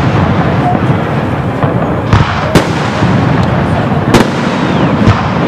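Fireworks display: a steady rumble and crackle of shells going off, with four sharp booming bursts standing out, the first about two seconds in.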